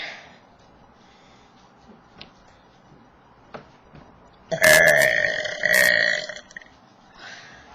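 A person's deliberate, forced burp from swallowed air, starting a little past halfway and lasting about two seconds at a steady low pitch. It is loud.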